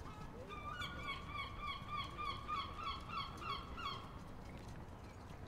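A bird calling in a rapid series of short, pitched notes, about three a second, starting about half a second in and stopping about four seconds in, over low steady background noise.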